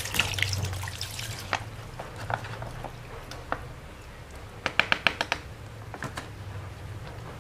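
Instant jelly pieces and their syrup tipped from a plastic pouch into a plastic strainer over a jug, the liquid trickling and dripping through. Scattered small clicks, with a quick run of about six sharp clicks about five seconds in.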